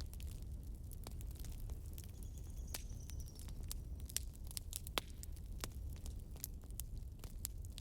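Campfire crackling: irregular sharp pops and snaps over a low steady rumble, with one louder pop about five seconds in. A faint high thin whistle sounds briefly about two seconds in.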